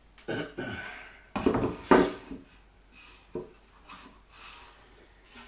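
Plywood drawer panels knocking and scraping together as a drawer box is fitted by hand: a few short, sudden knocks, the loudest pair about one and a half to two seconds in.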